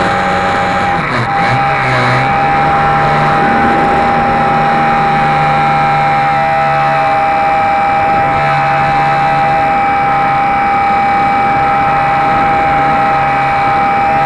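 A HobbyZone Super Cub RC airplane's electric motor and propeller in flight, heard from a camera mounted under the wing: a steady high whine over rushing air noise.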